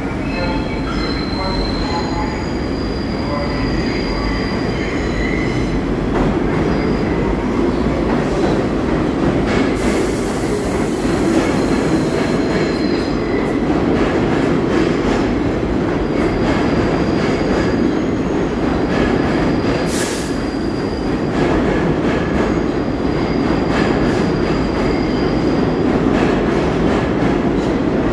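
An R62A subway train at a station: its doors close and it pulls out, with a steady rumble of wheels on rail and high-pitched wheel squeal coming and going. A short sharp hiss comes about twenty seconds in.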